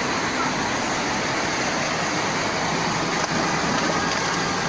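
Swollen, flooded river rushing in a steady, loud, even rush of water.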